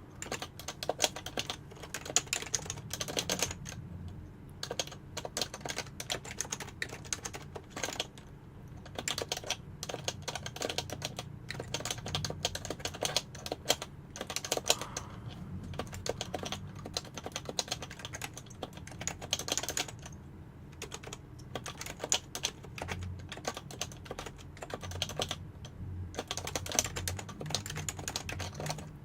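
Typing on a PFU Happy Hacking Keyboard (HHKB) with Topre electrostatic capacitive switches: fast runs of keystrokes, broken by short pauses about 4, 8 and 20 seconds in.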